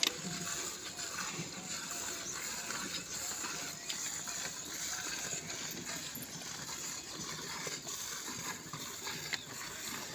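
Milk squirting into a steel pail as a cow is milked by hand, over a steady outdoor background.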